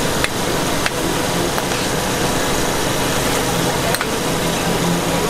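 Large wok of instant noodles frying as two metal ladles toss and scrape through them, with a few sharp clinks of ladle on wok. A steady hum runs underneath.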